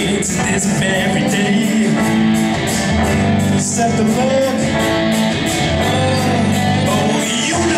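Live rock band playing: guitar, bass, piano and drums with a steady cymbal beat, and a singer's voice coming in over the band.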